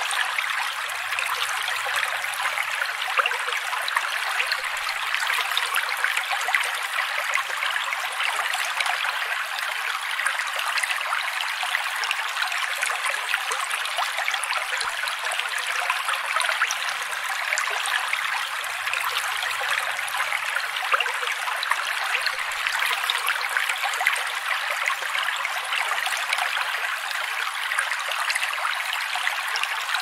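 Mountain creek: a steady rush and trickle of water running over rocks, with no deep rumble.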